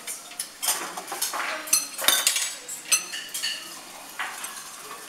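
Metal knife and fork clinking and scraping on ceramic plates during eating, an irregular run of sharp clinks with brief high ringing, busiest about two seconds in.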